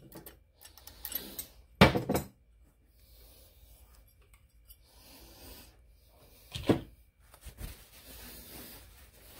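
Hand handling of small metal engine parts on a workbench: a few sharp clinks and knocks, the loudest about two seconds in and another near seven seconds, with faint handling noise between.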